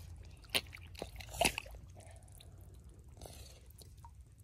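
Hands splashing and sloshing in a shallow muddy puddle while scooping up a goldfish, with two sharp splashes about half a second and a second and a half in.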